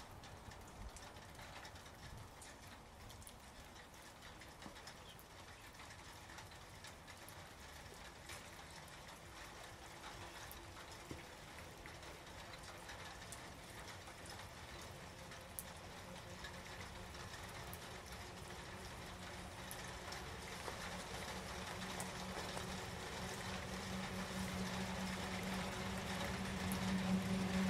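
Scattered raindrops ticking and dripping, while a PKP ET22 electric freight locomotive hauling loaded gondola wagons draws closer, its steady low hum growing louder through the second half.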